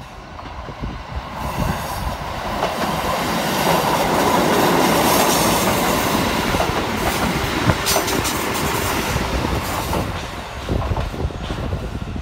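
Kotoden electric commuter trains, the 1200 series and the red 1080 series, passing close by. The sound builds to its loudest about four to six seconds in, with wheels clacking over the rail joints, then eases as the trains move away.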